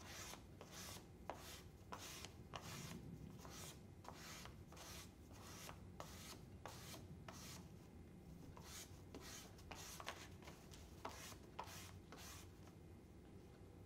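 Paper blending stump being scraped in short, faint strokes, about two a second, as it is pulled and turned to round its tip. The strokes stop shortly before the end.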